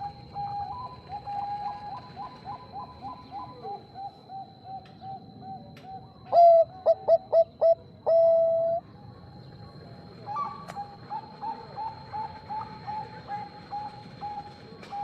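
Zebra doves (Bangkok perkutut) cooing. A loud phrase of quick staccato notes ending in one long drawn-out note comes about six seconds in, while a fainter dove keeps up a rapid run of coo notes before and after it. A faint steady high whine sits under it all.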